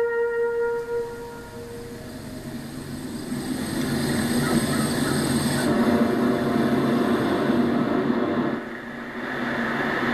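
The last held note of a bugle fades out in the first second and a half. Then a stadium crowd's roar swells up, stays steady through the middle, dips briefly near the end and comes back.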